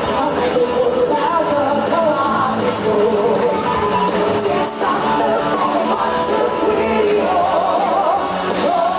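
Woman singing live into a microphone, backed by a band with electric guitar, keyboard and drums.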